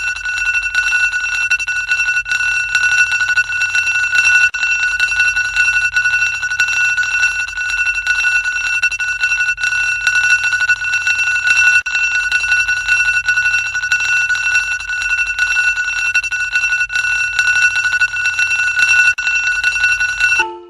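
An alarm ringing: one loud, piercing, high-pitched ring with a fast buzzy flutter, unbroken and unchanging until it cuts off at the very end.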